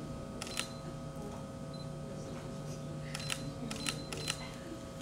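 Camera shutter clicks: one about half a second in, then a quick run of about six near the end, several of them with a short high beep like a camera's focus-confirm signal. A steady hum runs underneath.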